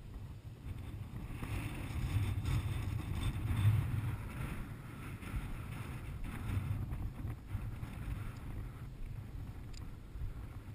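Wind rumbling on the microphone of a body-worn camera, with the swish of legs walking through tall dry grass, strongest a couple of seconds in.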